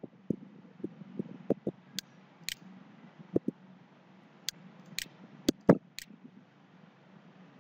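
Computer mouse buttons clicking: a quick, uneven run of sharp clicks that stops about six seconds in, over a faint low steady hum.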